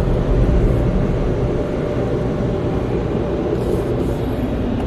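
Steady low rumble, heard inside a car's cabin, as the car rolls out of an automatic car wash tunnel. It eases a little about a second and a half in.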